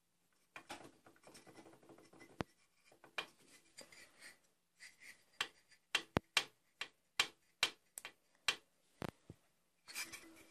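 Hands handling parts of a disassembled IZh Jupiter-4 engine: rubbing and scraping, then a run of sharp clicks and taps in the second half.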